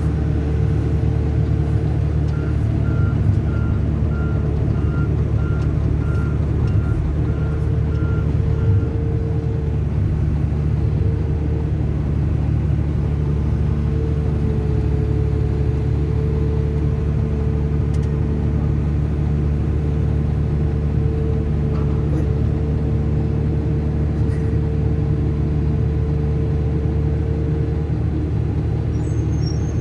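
Volvo EC480DL excavator's diesel engine running steadily under hydraulic load, with a steady high whine over it. A run of quick, evenly spaced high warning beeps sounds for several seconds near the start.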